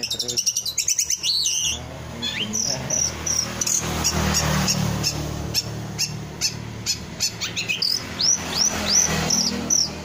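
Caged long-tailed shrike (cendet) singing a fast, varied song: rapid chattering notes at first, then scattered high chirps and clicks, and near the end a quick run of short down-slurred whistles. A low hum sits underneath through the middle.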